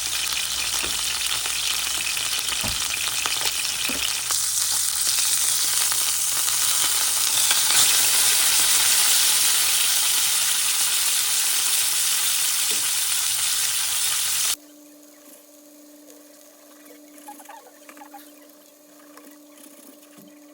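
Meat sizzling and crackling in a hot pan, a loud steady hiss. About fourteen seconds in it cuts off suddenly to a quiet steady hum.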